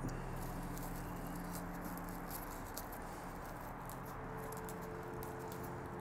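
Dry zelkova leaves faintly rustling and ticking as they are plucked from a bonsai forest planting and drop onto the soil, over a steady low hum.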